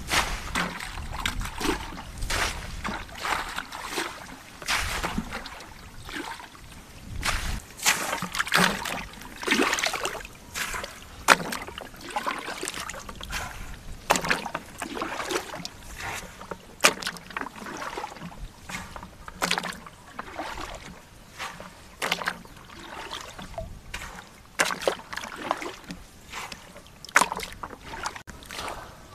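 Shallow water splashing and sloshing in irregular strokes as hands grope through it after fish, with a sharp splash every now and then.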